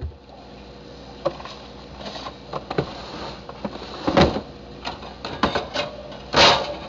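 Irregular knocks and short clatters of things being handled and moved about in an open refrigerator, the two loudest about four and six and a half seconds in.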